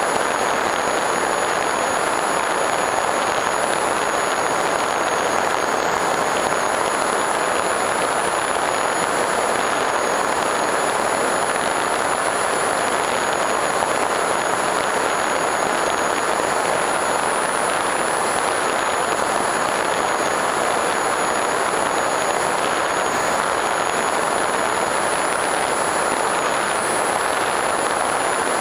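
Steady rush of air and propeller noise from an FPV Raptor RC plane's electric pusher motor in level flight, picked up by its onboard camera, with two steady high-pitched whines.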